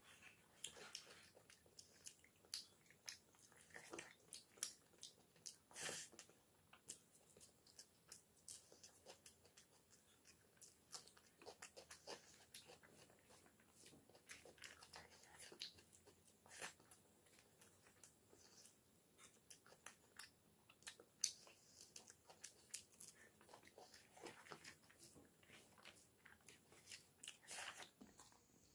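Quiet eating sounds: fingers kneading and mixing cooked rice on a banana leaf and chewing, heard as soft, irregular clicks and wet smacks.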